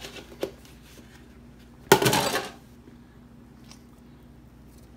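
Kitchen handling noises around a metal deep-dish pan while pizza dough is pressed into it: a short knock at the start, a smaller one just after, and a louder half-second clatter about two seconds in. A faint steady hum runs underneath.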